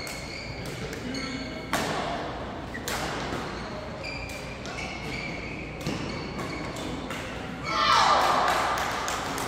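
Badminton play echoing in a large sports hall: sharp clicks of rackets striking shuttlecocks and short high squeaks of court shoes on the mats, from several courts. A louder burst of noise comes near the end.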